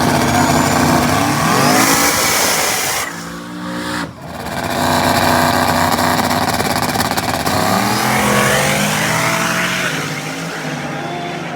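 Drag race cars, including a turbocharged LS 5.3-powered Chevy S10, making a pass down the strip: loud engines rising in pitch through the gears, several times over, with a brief drop about three to four seconds in.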